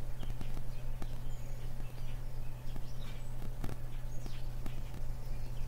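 Steady low electrical hum on the recording, with faint scattered clicks and crackle and a few faint, short high chirps.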